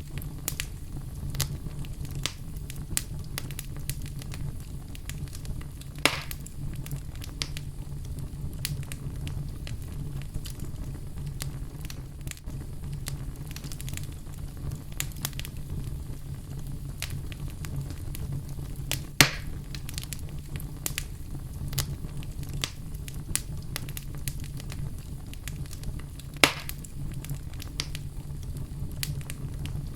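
Wood fire crackling in a fireplace: a steady low rumble of the flames with many scattered small crackles and a few louder pops, three of them standing out.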